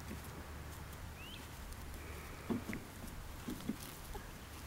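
Quiet outdoor ambience: a steady low rumble, a short rising chirp about a second in, and a few brief, soft voice sounds around the middle.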